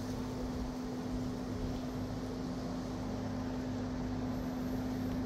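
Breezy, rainy weather ambience: a steady rushing hiss of wind and rain. Under it runs a constant low machine hum.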